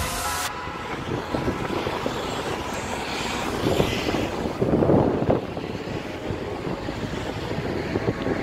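City street traffic: cars driving through an intersection with a steady rumble, one vehicle passing loudest about five seconds in.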